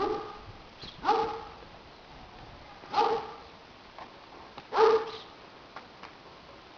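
Five-week-old Estrela Mountain Dog puppy barking: four short, high barks, one to two seconds apart.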